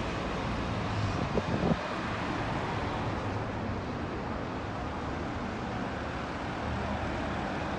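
Steady street traffic noise from passing cars, with a couple of brief knocks about one and a half seconds in.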